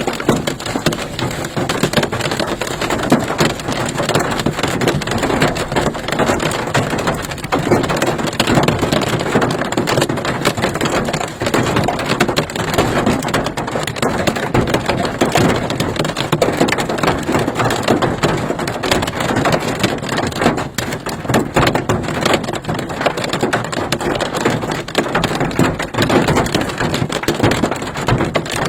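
Large hailstones, some the size of golf balls, hitting an SUV's body and glass in a dense, continuous, loud clatter of impacts.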